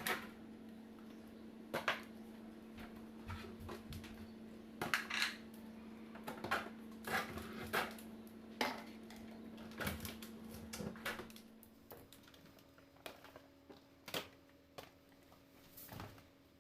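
Dishes, containers and fridge parts clattering and knocking irregularly as they are handled, over a steady hum that shifts in pitch about twelve seconds in.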